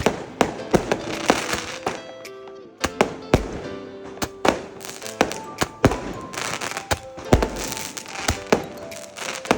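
Fireworks going off: repeated sharp bangs, one or two a second, with crackling between them. Background music plays under them.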